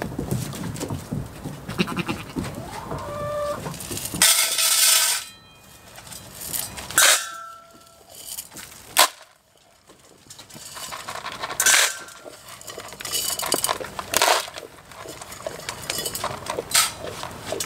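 Goats bleating several times, the longest and loudest call about four seconds in, with shorter calls after it.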